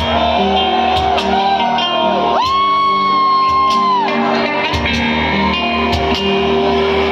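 A live band playing amplified music with guitar and drums in a large hall; a singer holds one long high note about two and a half seconds in, for about a second and a half.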